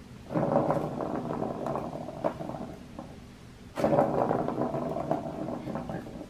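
Plastic ball rolling round the track of a plastic ball-track cat toy, set going twice. Each run starts suddenly and fades as the ball slows.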